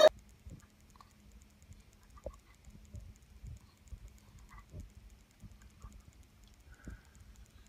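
Schnauzer nibbling and snapping at a cob of cooked corn held above it: faint, scattered small clicks and crunches of teeth on the kernels, over a low steady hum.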